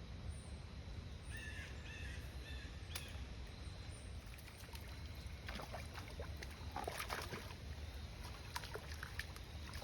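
Faint outdoor river ambience: a steady low rumble, with a bird calling about four times in quick succession about a second and a half in, and scattered light clicks later on.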